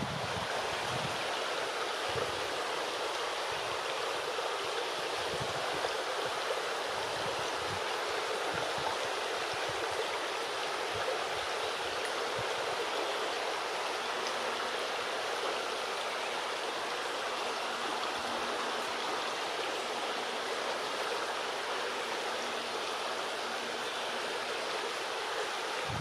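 Shallow river running over stones, a steady rushing and rippling of water.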